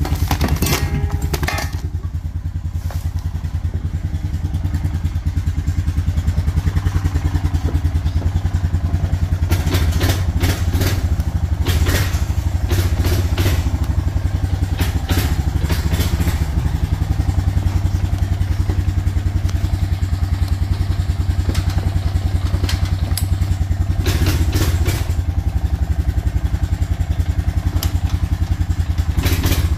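An old Honda's engine idling steadily, with a few bursts of clatter now and then.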